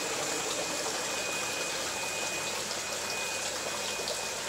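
Water from Dutch bucket drains falling and trickling into an aquaponics sump tank in a steady splash. A faint high tone comes and goes over it.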